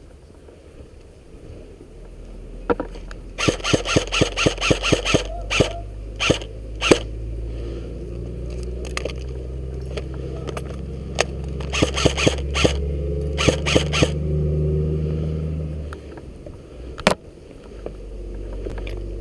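Airsoft gun firing strings of sharp shots, about six a second, a few seconds in and again near the middle, with single shots between, over a steady low hum.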